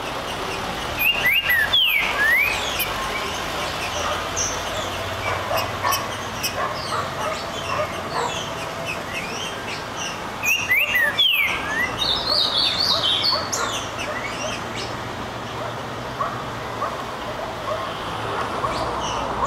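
Green-winged saltator (trinca-ferro) singing loud phrases of quick falling whistled notes, twice, about nine seconds apart. Scattered faint chirps and a steady low background rumble run between the phrases.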